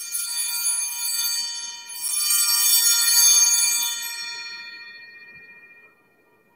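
Altar bells rung at the elevation of the consecrated host. They are shaken in two rounds, the second a little louder, and then ring out and fade over a couple of seconds.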